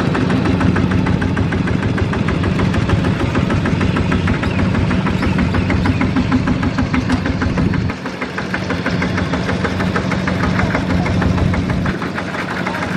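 Two-wheel walking tractor's single-cylinder diesel engine running steadily as it pulls a trailer cart, with a rapid, even chugging beat.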